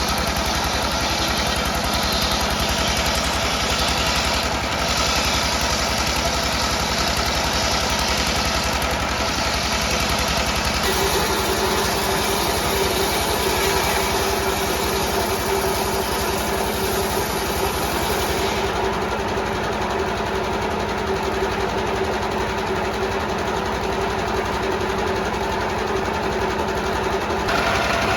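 Stationary diesel engine driving a circular saw bench, running steadily. About a third of the way in, a steady higher hum joins, and it drops away near the end.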